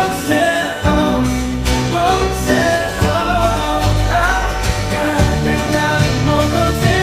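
Music: a song with a steady bass line, regular drum hits and a gliding melodic line.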